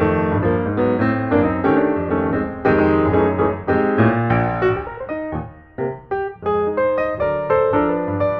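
Background piano music: a tune of short, quick notes and chords, with a brief lull about five and a half seconds in.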